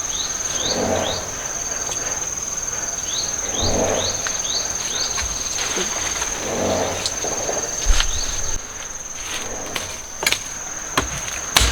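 Insects, crickets or cicadas, keep up a steady high-pitched trill, with short rising chirps in the first half and a few sharp knocks near the end.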